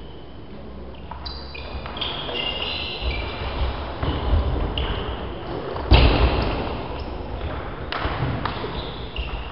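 Table tennis rally: the ball pinging off bats and table every half second or so, with low thuds of players' feet on the wooden gym floor. One loud thump comes about six seconds in.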